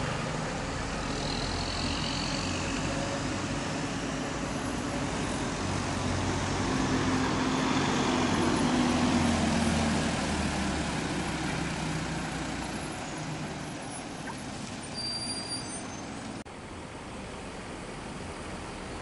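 Coach buses' diesel engines running as the buses drive slowly across the terminal yard, the engine sound swelling to its loudest about halfway through and then fading. The sound drops abruptly near the end.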